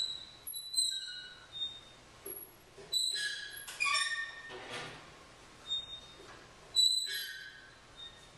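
About five short, high squeaks at irregular intervals, each a quick cluster of piercing tones, made as part of an experimental music performance. The loudest comes near the end.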